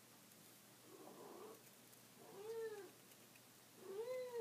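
A domestic cat meowing: two clear meows about a second and a half apart, each rising then falling in pitch, after a softer call about a second in.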